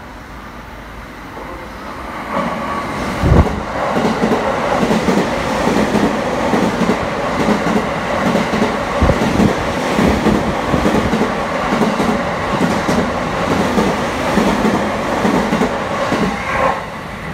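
Green-and-orange-striped stainless electric commuter train passing through a station at low speed: a steady rumble with the clack of wheels over rail joints. It grows loud about two seconds in.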